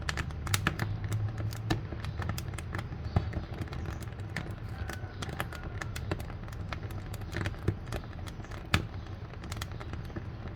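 Wood fire burning in a wood-fired cook stove: a steady low rumble of the flames with frequent irregular crackles and pops, a few sharper pops standing out.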